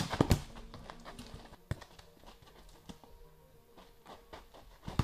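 A football kicked hard, a sharp thud at the start followed a moment later by a second thud, then another single knock about a second and a half later. Light scuffing footsteps on packed dirt run through the rest.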